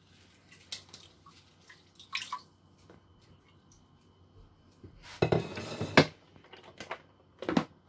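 Wet kale leaves being handled and dropped into a plastic salad spinner basket: soft rustles and light plastic taps, with a louder rustle about five seconds in and a shorter one near the end.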